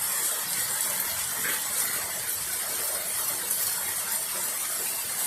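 Heavy rain falling in a steady hiss, with water running and gushing.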